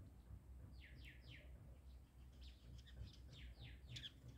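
Faint high bird chirps: a quick run of three downward-sliding chirps about a second in, then more scattered chirps near the end, over a low background rumble.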